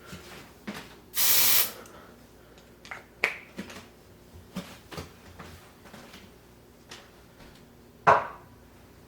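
One short burst of aerosol smoke-detector test spray from a Smoke Centurion can, a hiss lasting about half a second, about a second in. Faint clicks follow, then a sharper knock near the end.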